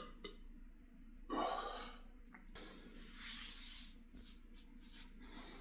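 A single short burp a little over a second in, followed by a long breathy exhale.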